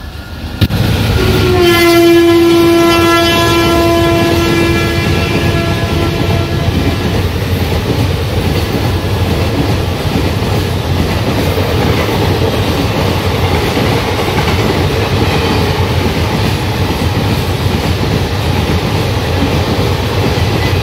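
WAP4 electric locomotive sounding a long horn blast of about five seconds as it runs through, its pitch dipping slightly as it passes. The express's passenger coaches then rush past with a steady rumble of wheels on rail.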